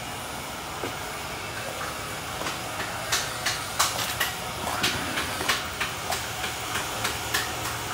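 Footsteps through storm-fallen leaves and twigs: irregular crackles and snaps over a steady hiss, starting about two and a half seconds in.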